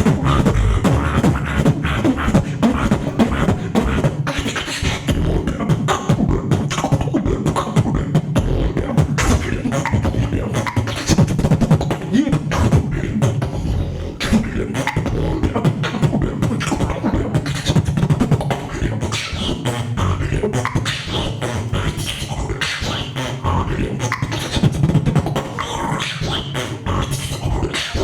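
Vocal beatboxing performed in a battle round: a rapid, dense run of sharp clicks and snares over a deep, continuous bass.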